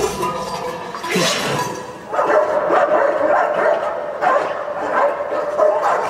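Dogs barking repeatedly in an animated-film soundtrack played back over studio speakers, starting about two seconds in, over a steady held tone. Just before, about a second in, comes a brief rush of noise with a falling sweep.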